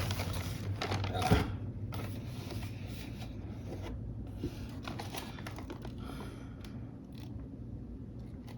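Plastic model kit parts and packaging being handled: a sharp knock about a second in, then scattered light rustling and scraping.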